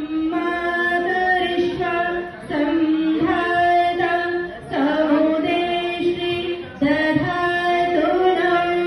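Music: a woman singing a slow melody in long held notes, phrase after phrase.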